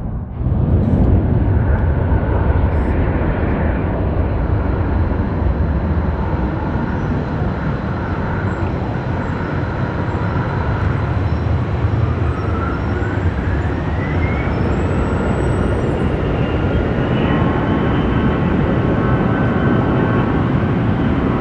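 Jet airliner engines running with a loud, steady rumble. About halfway through, a whine rises and then holds steady as the engines spool up.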